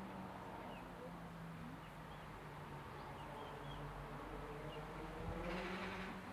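Vorwerk hen sitting in a nest box, crooning a low, drawn-out purring hum that wavers slowly in pitch. Faint small-bird chirps are in the background, and there is a brief rustle near the end.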